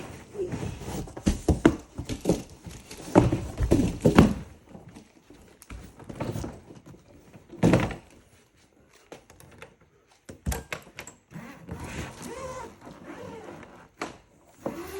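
A suitcase being handled and opened: a string of thumps and knocks, thickest in the first few seconds, with single loud knocks near the middle and about two-thirds of the way in, and quieter rustling between.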